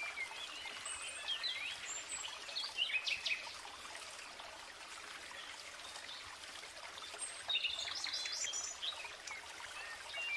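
Small birds chirping with short calls and quick pitch glides over a steady faint outdoor hiss, busiest in the first few seconds and again about three-quarters of the way through.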